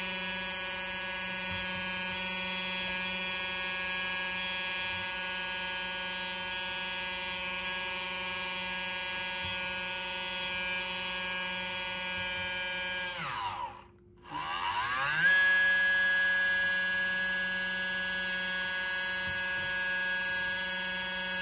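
Small electric motor driving a 3D-printed gear pump that pushes thick CHF11 hydraulic fluid to a small cylinder, running with a steady whine. About 13 seconds in the whine falls in pitch and stops, then rises back up a second later and runs steady again.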